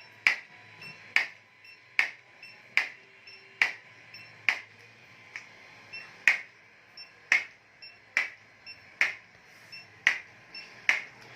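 Chiropractic impulse adjusting gun firing over and over, a sharp click with a brief high ping about once a second, some strikes weaker than others.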